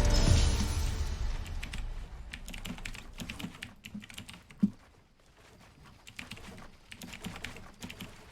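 Typing on a computer keyboard: a fast, uneven run of key clicks with one louder knock about halfway through. The tail of a music track fades out under the first couple of seconds.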